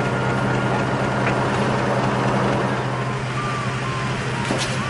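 Heavy diesel vehicle engine running steadily with a low hum. Thin high tones hold and bend slightly over it, and there is a short sharp sound near the end.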